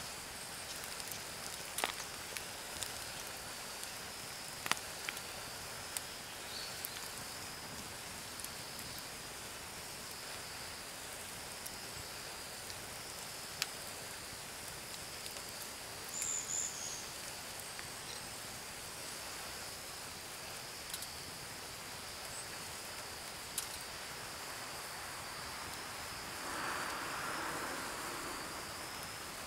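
Insects chirring steadily at one high pitch, with scattered sharp clicks and a short hiss near the end.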